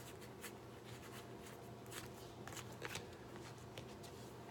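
Faint slides and flicks of football trading cards being flipped through by hand, a string of short soft clicks as each card is moved off the stack.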